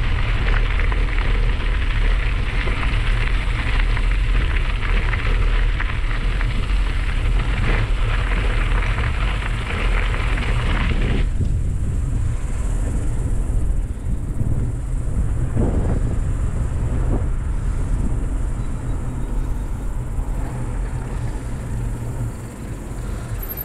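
Bicycle tyres crunching over a crushed-gravel path with wind rumbling on the microphone. About eleven seconds in the crunching hiss stops abruptly as the tyres roll onto smooth asphalt, leaving mainly the wind rumble and a few light knocks, which ease off near the end.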